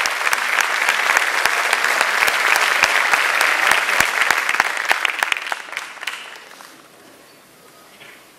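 Audience applauding: dense clapping that dies away about six to seven seconds in.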